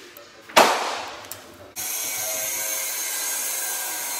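A sudden loud hissing burst that fades away over about a second, then an electric motor starts abruptly and runs steadily with a whining hum.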